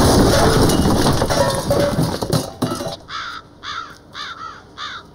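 A loud, dense rush of noise with many knocks for the first three seconds, then a bird calling five times in quick succession, much quieter.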